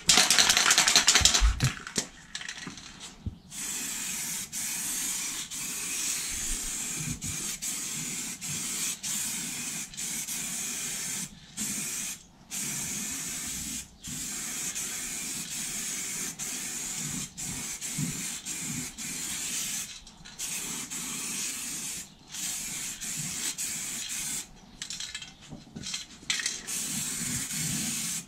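Aerosol spray-paint can spraying in long hisses, broken by many short pauses where the nozzle is let go. It is loudest in the first couple of seconds.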